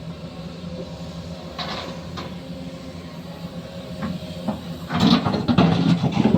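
Machinery running with a steady low hum, with scattered clicks and knocks that thicken into a louder clatter of rattles about five seconds in.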